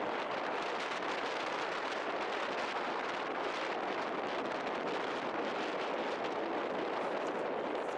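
Strong wind blowing, a steady even rush with no breaks.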